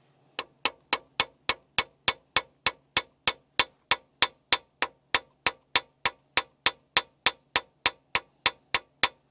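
A hammer rapping rapidly on a broken bolt that has just been welded in the engine, about three sharp metallic strikes a second, each with a high ring that carries between strikes. It is the hammering used to shock a seized broken bolt loose.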